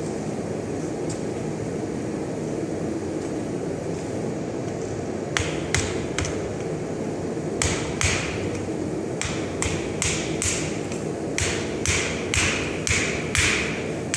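Hammer blows on hot steel at an anvil while forging a leaf blank: two strikes about halfway through, then after a short pause a run of ringing strikes at about two a second. Underneath is a steady rushing background noise.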